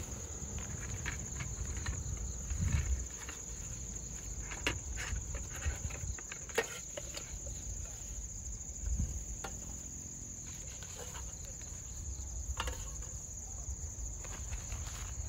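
Steady high-pitched insect chorus, with a few sharp clinks and rustles as camping cookware is taken out of a bag and set on a metal table.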